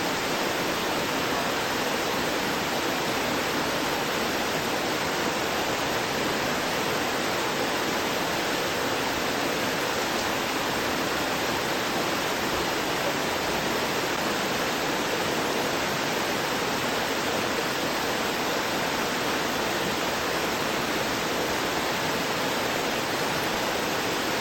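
Forest stream flowing and gurgling over rocks: a steady, even rush of water.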